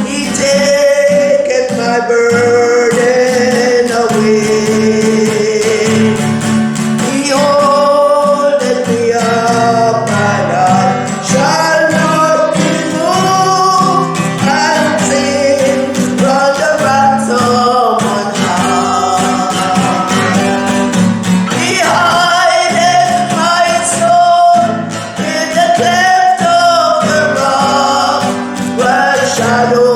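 Worship music: a sung melody over guitar accompaniment.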